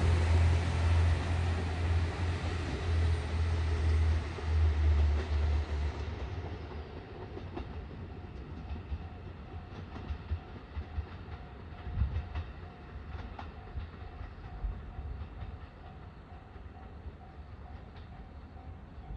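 KiHa 54 diesel railcar pulling away and receding. Its engine rumble is loud at first and fades after about six seconds, leaving faint clicks of the wheels over the rails. A faint repeating high tone sounds in the background through the second half.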